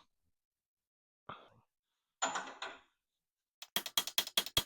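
A rapid run of sharp metal-on-metal hammer taps, about seven a second, starting near the end: a socket being hammered to drive an adjustable camber bushing down into a 1987–1996 Ford F-150's front axle. Before that, two brief soft handling noises.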